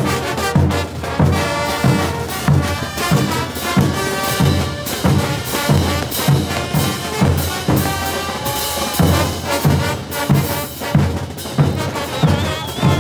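Bolivian brass band playing a morenada: trumpets and trombones over a steady bass drum beat, about two beats a second.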